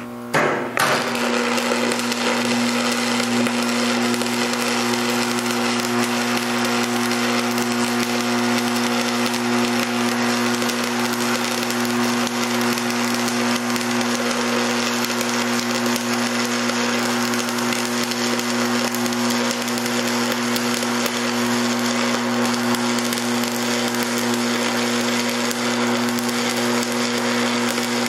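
Shielded metal arc (stick) welding arc burning steadily: a continuous crackling sizzle over a steady hum. The arc settles within the first second, then runs evenly.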